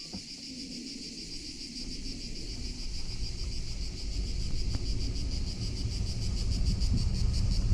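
Cicadas singing in a steady, fast-pulsing chorus. A low rumble builds underneath and grows louder towards the end.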